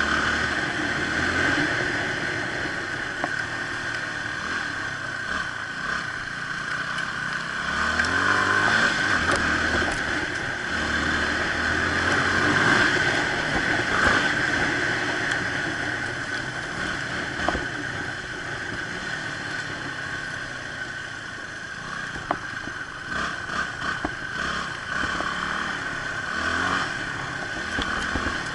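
Motorcycle engine running while being ridden, its pitch rising and falling again and again with the throttle and gear changes, over a steady rushing noise.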